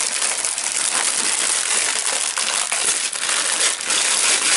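Plastic packaging of a LEGO set crinkling and rustling as it is handled, with many small sharp clicks and rattles of the plastic pieces.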